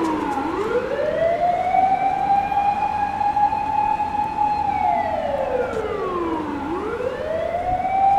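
Japanese fire engine siren wailing slowly. It rises from a low pitch to a steady high tone, holds it for about three seconds, then drops over about two seconds and climbs back again near the end.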